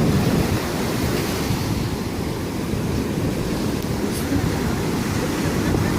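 Sea surf washing steadily, mixed with wind rumbling on the microphone.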